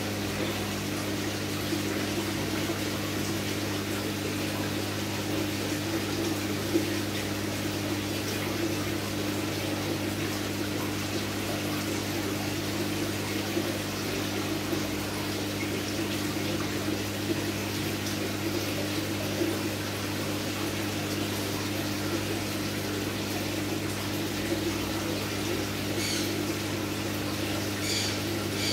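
Aquarium water pump running with a steady low hum over an even rush of moving water.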